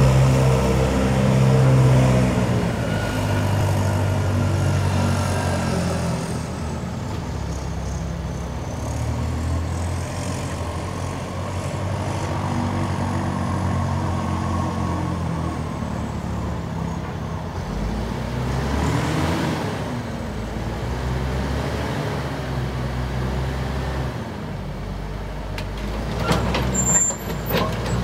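Caterpillar D6N crawler dozer's diesel engine running, its pitch rising and falling as the machine moves and turns. A few sharp clanks come near the end.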